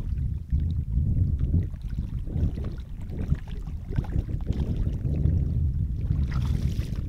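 Water sloshing and lapping around wader-clad legs and a carp retention sling in shallow lake water as the fish is released: an uneven low rumble with small splashy clicks.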